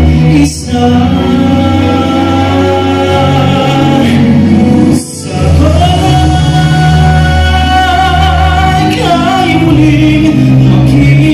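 A man singing a Tagalog song into a handheld microphone over backing music. The sound drops out briefly twice, once about half a second in and once about five seconds in.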